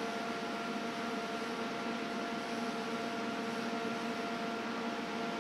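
TIG welding arc on 304 stainless steel exhaust tube: a steady hiss with a constant electrical hum under it.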